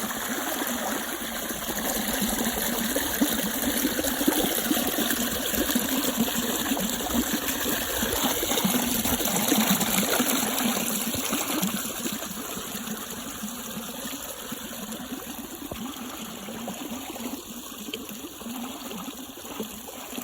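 Water flowing steadily in a stream, a little quieter in the last third.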